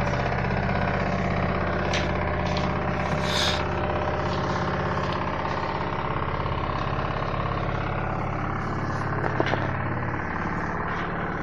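Front-load washing machine running with a steady mechanical hum and a faint, slowly rising whine. A few light clicks and knocks come through, the sharpest about nine and a half seconds in.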